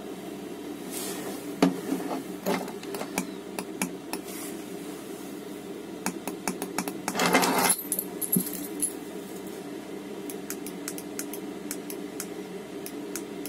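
Chinese Webasto-type diesel air heater running with a steady low hum, damped by acoustic foam laid over it. Scattered light clicks run over the hum, with a brief rattle about seven seconds in.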